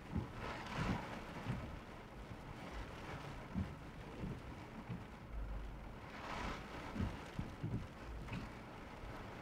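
Rain falling on a car, heard from inside the cabin, as a steady rush with scattered low thumps and a couple of louder swells.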